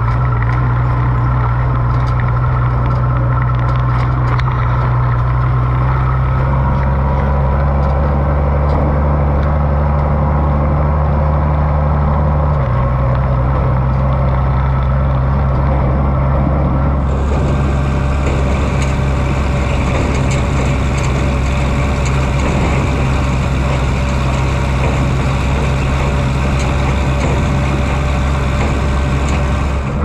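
Oliver 1655 tractor's six-cylinder engine running steadily while driving, loud and close. Its pitch drops slightly about twelve seconds in, and a higher hiss joins from about seventeen seconds on.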